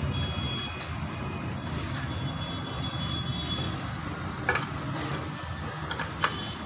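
A steady low rumble, with a few sharp clicks of brass air-line fittings and nylon tubing being handled as the hoses of a six-trumpet air-horn set are pushed onto their distribution block, about four seconds in and again near the end.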